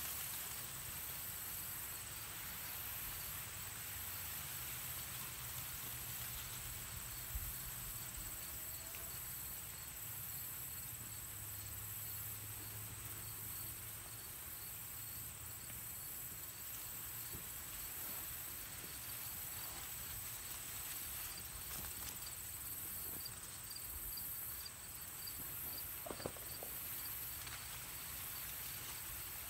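Insects trilling steadily in the grass, a continuous high-pitched buzz with a faint regular pulse over it. A few faint scrapes and ticks come from dirt being shaken through a wire-mesh sifter over a foothold trap bed.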